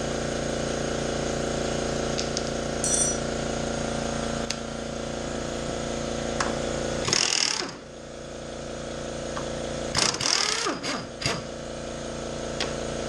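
Power tool, likely an impact wrench, run in short bursts on the lower control arm bolts: one burst about seven seconds in, then several quick bursts around ten to eleven seconds. A steady mechanical hum runs underneath throughout.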